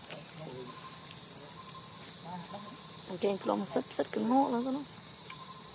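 A steady, high-pitched insect chorus throughout. Midway, a voice sounds for a couple of seconds, with a few sharp clicks.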